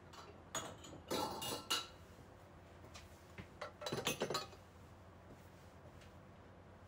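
A cloth wiping a wooden tabletop: two clusters of short rubbing strokes, about a second in and again about four seconds in, with light clinking tones among them.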